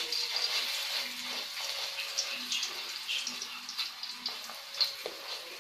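Food mixture frying in a thin layer of hot oil in an aluminium wok: a steady sizzle with frequent small crackles and spits.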